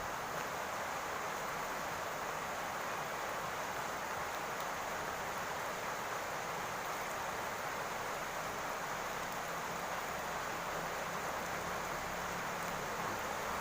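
Steady rain falling on a roof, an even unbroken hiss.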